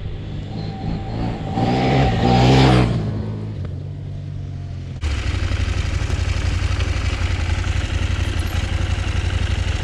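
Motorcycle engine revving up and fading away over a couple of seconds. After a sudden cut about five seconds in, a steady, loud engine and wind rumble from a motorcycle running at speed.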